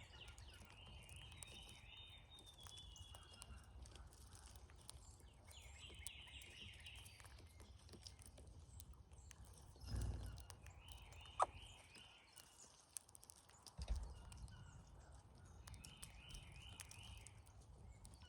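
Brown-headed cowbirds at a feeder giving short, rapid chattering rattle calls in four faint bouts, with a couple of low dull thumps about ten and fourteen seconds in.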